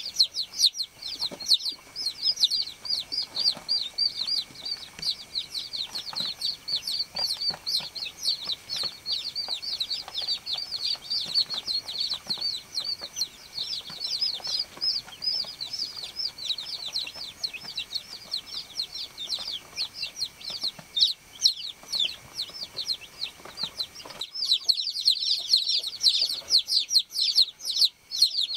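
Baby chicks peeping: many rapid, overlapping high-pitched cheeps, louder and busier near the end.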